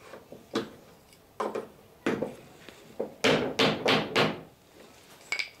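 Wooden knocks on a clinker boat plank as it is worked down to sit in its half lap at the stem. A few single knocks come first, then four louder ones in quick succession about three seconds in, and one more near the end.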